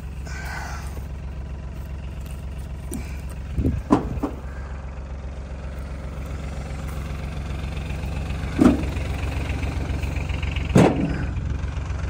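Utility vehicle's engine running steadily at idle, with a few short loud thumps: about four seconds in, again near eight and a half seconds and near eleven seconds.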